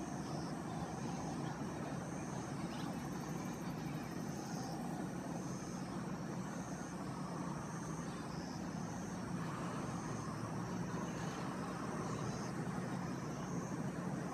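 Steady hum of distant road traffic, with a faint high-pitched chirp repeating about every two-thirds of a second.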